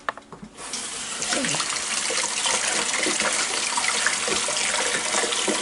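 A kitchen faucet is turned on about half a second in and runs steadily as hands are washed under the stream.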